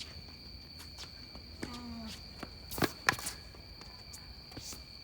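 Tennis play on a hard court: footsteps and shoe scuffs, then two sharp knocks of the ball close together about three seconds in, over a steady high-pitched whine.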